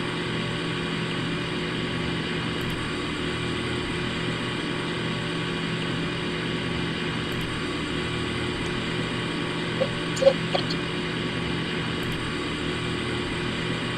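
2011 Payne PH13 heat pump outdoor unit running steadily through its defrost cycle, a constant hum with a whirring hiss. A couple of faint brief ticks come about ten seconds in.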